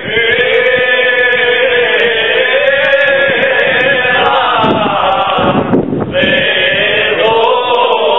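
Male group singing a Cretan rizitiko together, in long held, slowly bending notes; the voices break off briefly about six seconds in before the next phrase.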